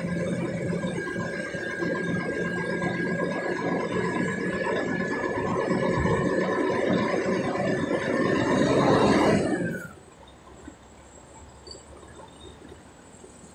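Container truck's engine and road noise heard from inside the cab while it drives slowly, with a steady whine over the rumble. Just before ten seconds in, the sound drops off abruptly to a faint hum.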